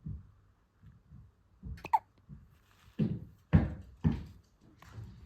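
A newborn baby hiccupping: a run of short, sharp hiccups with small breathy sounds between them, the loudest a little past the middle.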